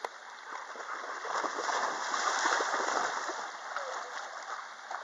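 Water splashing and churning as dogs swim and paddle through a pond, swelling about a second in and easing off near the end.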